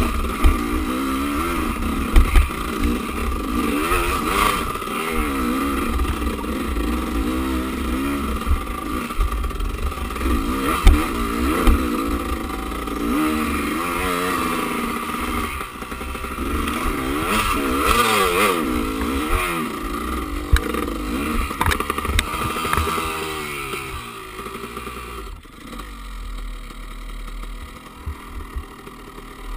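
Enduro dirt bike engine revving up and down again and again as the bike is ridden over a rough trail, with knocks and clatter from the bike over the bumps. A little over twenty seconds in, the revs fall away and the engine runs quieter to the end.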